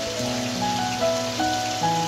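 Steady rain falling, with a soft melody of held notes playing over it.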